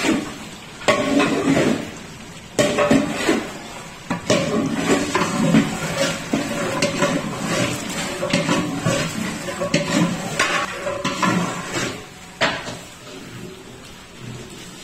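Long metal ladle stirring thick beef curry in a large aluminium cooking pot, scraping and knocking against the pot's sides and bottom in irregular clanks. The clanks are loudest in the first few seconds, with another sharp one near the end.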